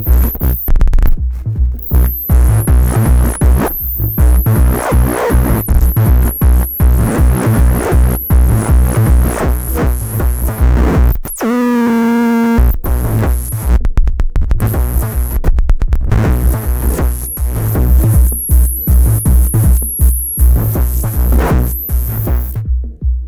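Harsh, distorted electronic noise-techno from a Gemini CDM-3600 all-in-one DJ unit whose output is fed back into its own mic input. A fast, regular low beat runs under distorted noise with high squeals. About halfway through, one steady feedback tone is held for about a second, then the sound stutters in rapid cut-outs.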